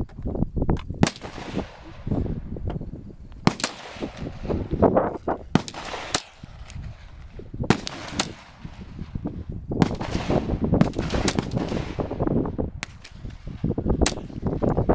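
Gunfire at a shooting range: about a dozen single shots at irregular intervals, some sharp and loud, others softer, each trailing off in an echo.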